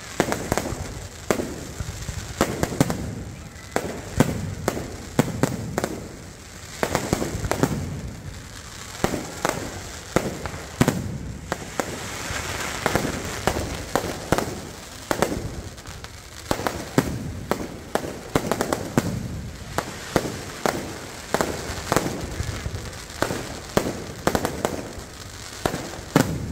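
Aerial fireworks display: shells and rockets bursting overhead in a steady barrage of sharp bangs, one after another without a break.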